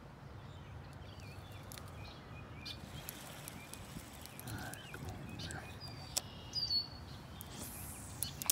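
Small birds chirping and calling over a low, steady rumble, with scattered light clicks from a spinning rod and reel being handled in the canoe and a sharper click near the end.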